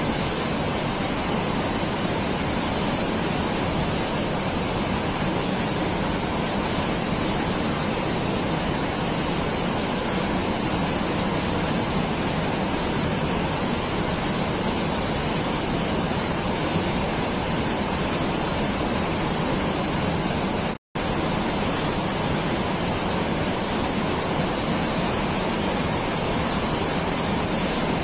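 A steady, even rushing noise with no tone or rhythm, cutting out completely for an instant about three-quarters of the way through.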